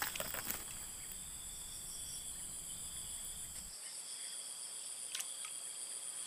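A steady chorus of insects buzzing in several high-pitched bands. A low rumble underneath stops suddenly a little under four seconds in, and there is a faint click about five seconds in.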